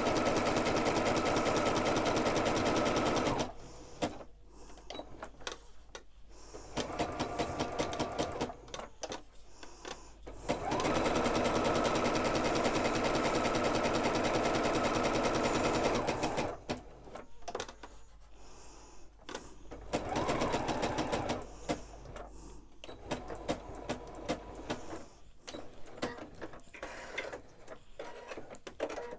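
Electric sewing machine stitching a narrow zigzag, running in spells: a steady run of about three and a half seconds, a short quieter burst, a longer steady run of about six seconds, and a brief burst around twenty seconds in. Small clicks come between the runs and near the end.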